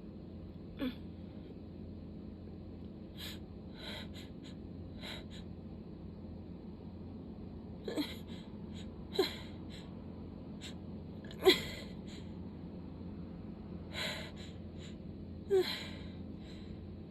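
A person in a sneezing fit: five short, sharp sneezes spread across the stretch, the loudest a little past halfway, with breathy gasping inhales between them.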